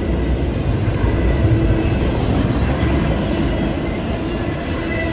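Double-stack intermodal freight train's container well cars rolling past: a steady rumble of wheels on the rails, swelling slightly about a second and a half in.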